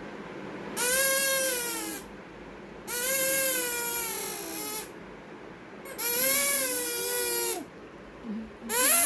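Baby crying in long pitched wails, four in a row, each lasting a second or two with short pauses for breath between them.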